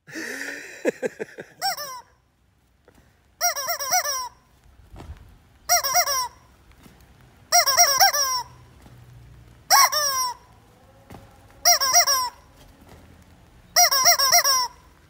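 Yellow rubber squeaky chicken toy squeezed in short bursts about every two seconds, each a quick run of warbling, honking squawks.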